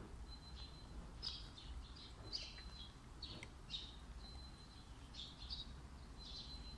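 Faint bird chirping: short high chirps and thin whistled notes that come again every second or so, over a low steady hum.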